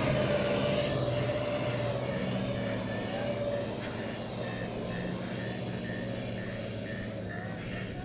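Land Rover off-road vehicles' engines droning steadily as they drive off along muddy tracks, fading as they pull away. In the second half a short high note repeats about twice a second.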